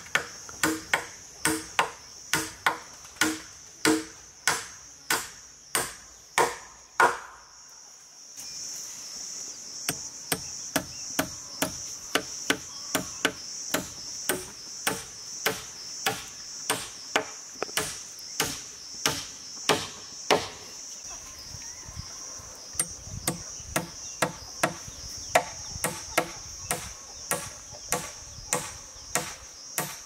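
A small hand hoe chopping into stony soil, in regular strikes about one and a half to two a second, each blow a short knock with a slight ring. After about eight seconds a steady high insect drone comes in, and the chopping strikes go on a little quicker.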